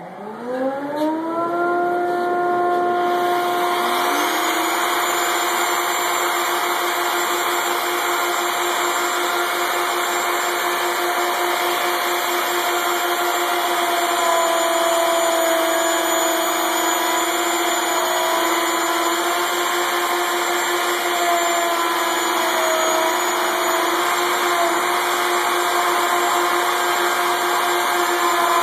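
Plunge router starting up with a rising whine that settles to full speed within about two seconds, then running steadily as it routs a raised-panel profile into an MDF door, its pitch dipping slightly now and then under the cutting load.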